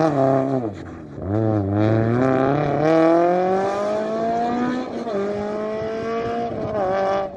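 Rally car engine at full throttle: the note dips in the first second, then climbs steadily in pitch for several seconds, with sudden drops for upshifts near five seconds and again near the end.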